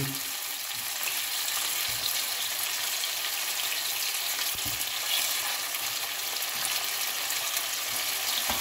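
Starch-dusted strips of beef searing in oil in a nonstick frying pan, a steady sizzle, with a few faint knocks as the strips are turned with a utensil.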